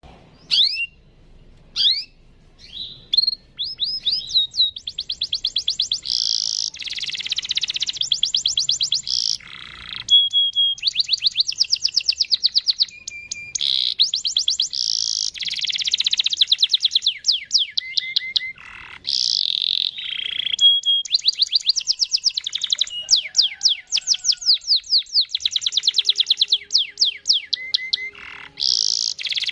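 Domestic canary singing: a few scattered chirps, then from about four seconds in a long, nearly unbroken rolling song of fast trills and runs of repeated high notes.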